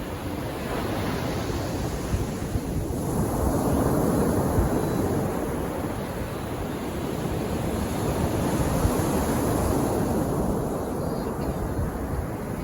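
Calm sea waves washing onto the beach, a steady surf hiss that swells twice as waves break and run up the shore.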